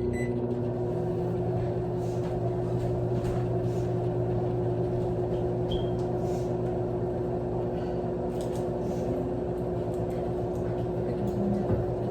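Microwave oven running with a steady hum, just switched on, with a few faint ticks over it.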